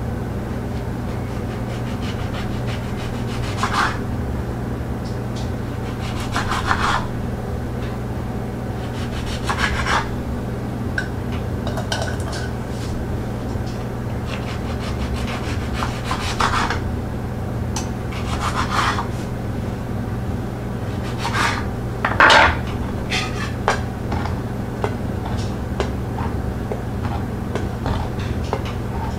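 Kitchen knife cutting jello-filled orange halves into quarters on a wooden cutting board: short scraping strokes through the peel every couple of seconds, with the blade rubbing on the board.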